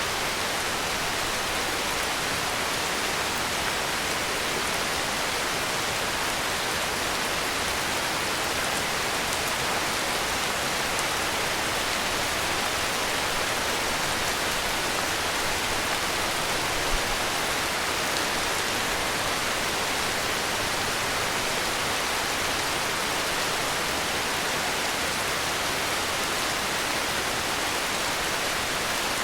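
Steady heavy rain, a dense even hiss without music, with one brief low bump a little past halfway.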